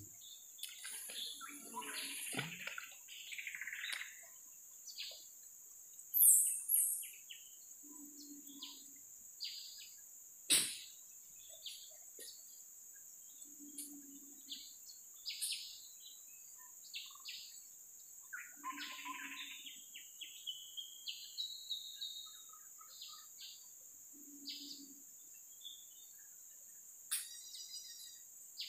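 Forest birds calling with many short high chirps over a steady high insect drone, with a low short call repeating about every five or six seconds. A louder high call comes about six seconds in, and a sharp click at about ten seconds.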